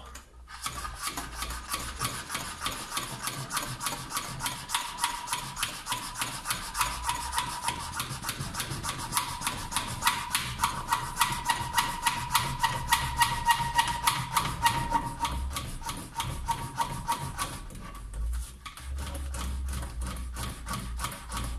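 Hand siphon pump worked in quick strokes, a rhythmic squeaking rub about four times a second, pumping old petrol out of a car's fuel tank through a hose. The pumping pauses briefly near the end, then starts again.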